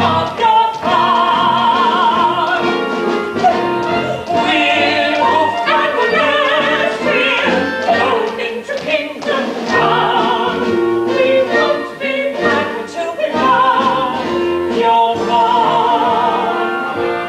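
Musical-theatre number: singing with wide vibrato over an instrumental accompaniment, continuous and loud.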